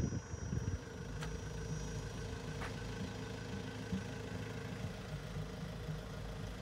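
Pickup truck engine idling steadily with an even hum. There are a few low, uneven rumbles in the first second.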